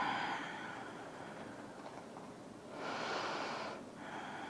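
A woman's audible breath during a held yoga pose: one long breath, about a second, starting about three seconds in, against faint room tone.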